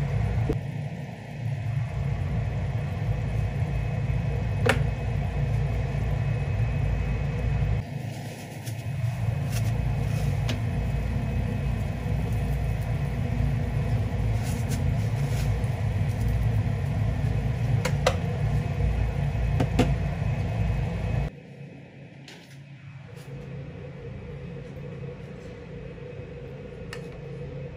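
Tomato sauce simmering in a frying pan on a gas stove under a steady low rumble, with a few sharp pops. About two-thirds of the way through the rumble drops away, leaving a quieter steady hum.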